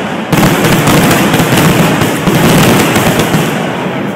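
Fireworks finale: a dense, unbroken barrage of shell bursts and crackling. It swells louder about a third of a second in and stays loud throughout.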